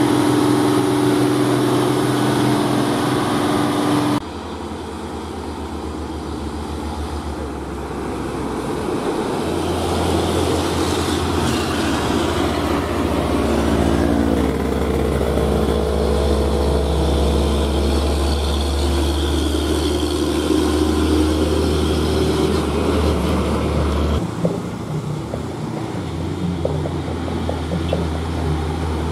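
Hino diesel trucks driving past one after another, their engines running steadily with a deep drone. The sound cuts abruptly to a new truck about four seconds in and again near the end, and the second truck grows louder as it approaches.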